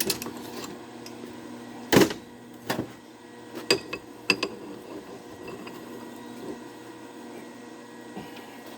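Metal parts being handled: a few sharp metallic knocks and clanks, the loudest about two seconds in, two of them with a brief ring, over a steady electrical hum.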